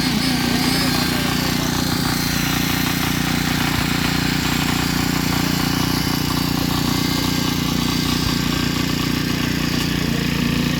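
An engine running steadily at an even speed, with a constant hum and no change in pitch or loudness.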